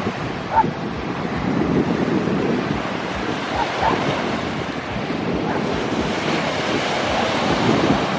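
Small ocean waves breaking and washing up on a sandy beach in a steady surging hiss, with wind rumbling on the microphone. A brief high sound stands out about half a second in, and two fainter ones near four seconds.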